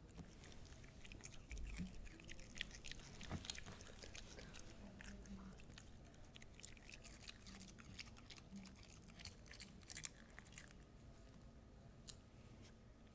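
A small dog chewing raw cabbage: a run of faint, crisp crunches that thin out near the end.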